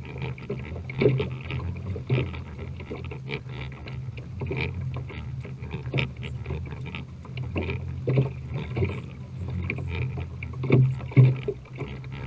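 Small fishing boat on the water: irregular knocks and splashes against the hull over a steady low hum.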